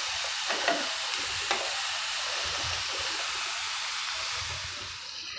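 Chopped onions sizzling steadily in hot oil in a frying pan on high heat as they brown, with a few soft scrapes of a wooden spatula in the first two seconds. The sizzle eases slightly near the end.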